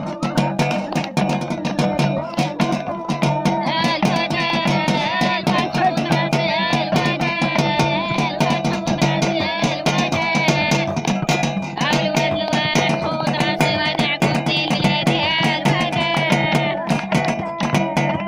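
Lively dance music with a fast, steady percussion beat, and a wavering high melody or singing line that comes in about four seconds in and drops out near the end.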